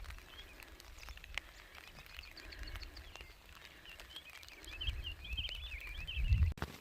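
Outdoor ambience with a bird chirping, breaking into a quick run of high twittering notes about two-thirds of the way in, over wind rumble on the microphone.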